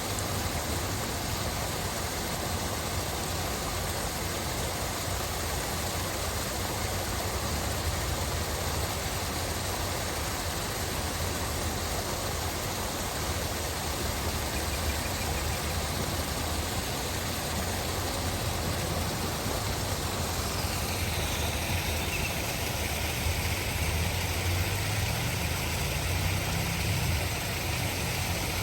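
Steady rush of a waterfall, falling water with a deep rumble underneath. In the last few seconds the sound shifts, and the low rumble grows louder.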